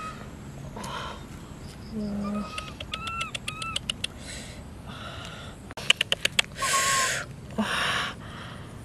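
Birds calling: a low call that falls at its end about two seconds in, then a run of short high chirps. Later come louder bursts of rustling and a quick string of sharp clicks.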